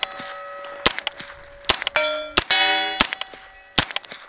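SIG MPX short-barrelled rifle fired in single shots, about five spaced under a second apart. Steel targets clang and ring after hits, loudest about two seconds in.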